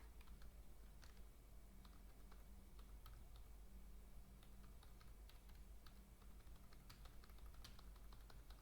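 Faint, irregular clicks of a computer keyboard being typed on, over a low steady hum.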